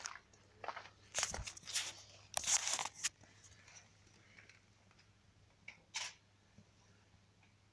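Scraping and crunching of someone climbing into a derelict railway carriage, shoes scuffing on metal and grit, heard as a cluster of rough scrapes in the first three seconds. A single sharp knock follows about six seconds in.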